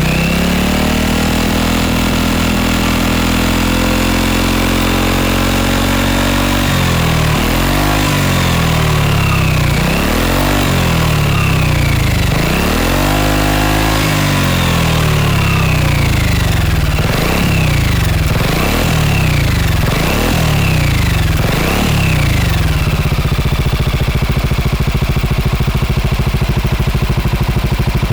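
Honda Forza 250 (MF17) scooter engine through a BEAMS R-EVO titanium-silencer full exhaust, held at raised revs for about six seconds, then blipped repeatedly, the blips coming shorter and quicker. It settles into a steady idle for the last five seconds.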